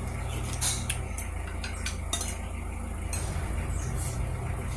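Metal spoons and forks clinking and scraping on ceramic plates and a bowl while eating rice and fish, several sharp clinks spread through, over a steady low rumble.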